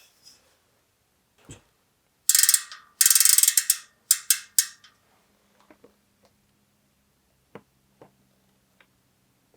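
A ratchet mechanism clicking rapidly in four quick bursts starting about two seconds in, each run fading as it slows, followed by a few light knocks.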